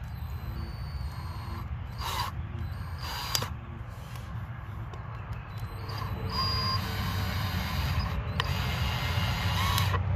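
Black & Decker 18V cordless drill driving a long screw through a downspout into a wooden stake: the motor runs steadily under load, with a couple of sharp clicks in the first half, and it gets louder about halfway through as the screw bites into the wood.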